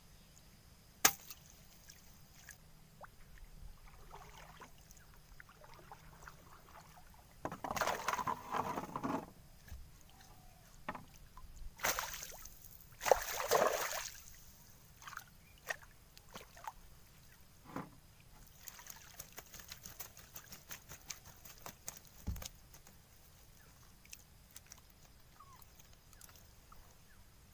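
Fishing net being hauled by hand out of a river over the side of a wooden dugout boat: river water splashes and sloshes off the net in two main bursts, with scattered small knocks and clicks of net and hands against the boat in between.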